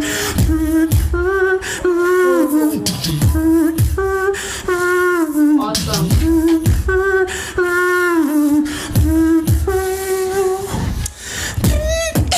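A beatboxer performing a battle routine: a held, wavering melody note kept going over the beat, with deep bass sweeps that fall in pitch about once a second and sharp percussive clicks between them.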